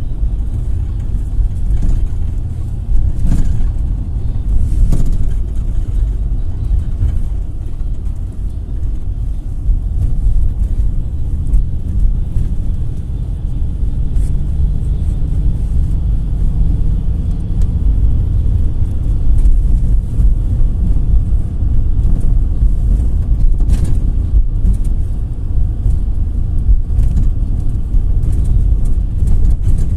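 GAZelle Next minibus (GAZ-A65R52) driving, heard from inside the passenger cabin: a steady low rumble of engine and road noise. The engine note shows faintly near the middle, and a few sharp knocks or rattles come through.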